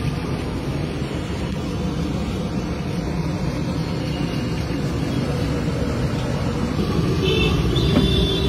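Steady rumble of road traffic mixed with the hiss of banana slices frying in a wide pan of hot oil.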